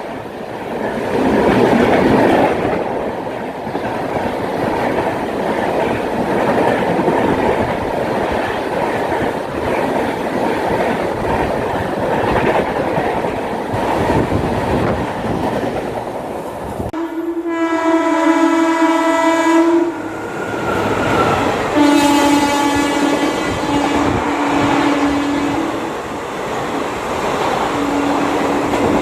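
A passing train with its wheels rattling over the track. About two-thirds of the way in, the train's horn sounds one long blast, then several more blasts in quick succession, and a short one near the end.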